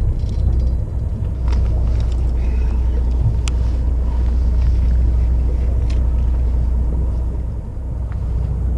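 Fishing boat's engine running with a steady low rumble, with a few sharp clicks over it.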